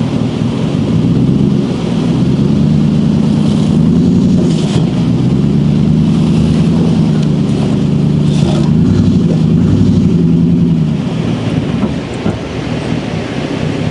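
Pickup truck engine revving under load while pulling a truck stuck in river mud, its pitch rising and falling several times and easing off near the end.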